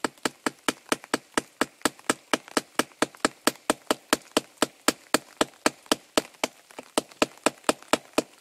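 Glass-breaker spike on the butt of an Elite Force tactical knife hammering a nail head into a log: quick, even metal-on-metal taps, about five strikes a second, driving the nail in.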